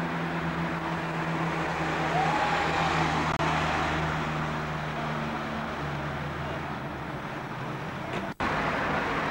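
Street traffic: a motor vehicle running nearby with a steady low hum over the road noise of passing cars. The sound briefly drops out about eight seconds in, at a break in the recording.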